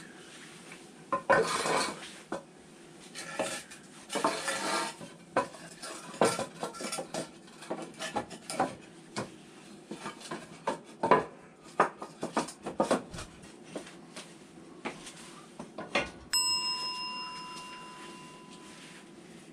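Metal tools and parts clattering and clinking as they are handled, with two longer scraping rustles in the first five seconds. About sixteen seconds in, a piece of metal is struck and rings clearly, dying away over about three seconds.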